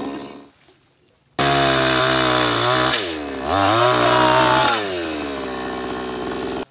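Two-stroke petrol chainsaw cutting branches. At the start it winds down and dies away. A second later it is back at full revs, dips once and picks up again, then settles to a lower steady speed until it cuts off suddenly near the end.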